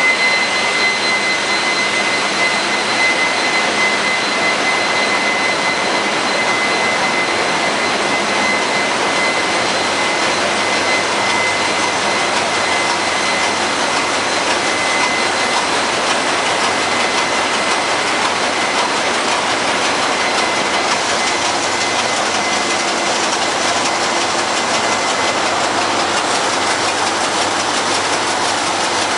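Loud, steady machinery noise in a tanker's engine room, with a steady high whine that fades about halfway through.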